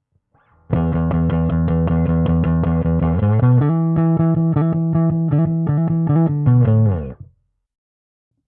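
Electric bass played through the Zoom B1FOUR multi-effects unit's TE400 amp preset: a low riff starts under a second in, moves to a higher note about three seconds in and picks quickly repeated notes, then slides down in pitch and stops about seven seconds in.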